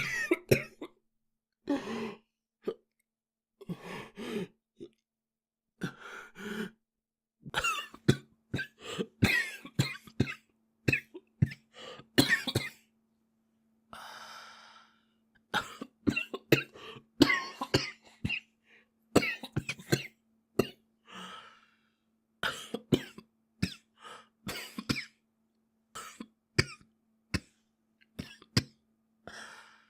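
A boy coughing over and over in bouts of short, harsh coughs separated by brief pauses, with a longer breathy sound about halfway through.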